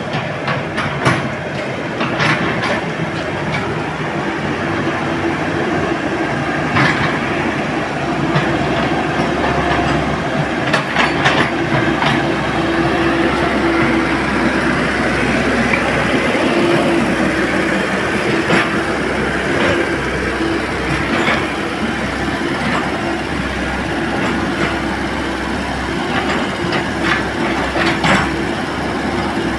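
Komatsu excavator working: its diesel engine runs steadily under a constant hum, with repeated metallic clanks and knocks throughout.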